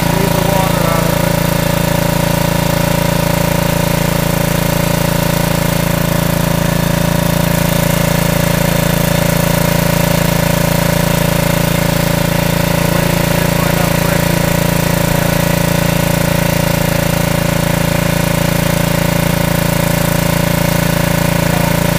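The exhaust-heat boiler rig running steadily: its engine and the small steam engine turning a belt-driven generator, a constant even mechanical hum with a fast regular beat.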